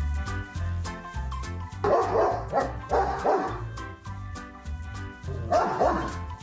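A dog barks about four times over background music with a steady beat. The barks come in a quick run starting about two seconds in, then once more near the end.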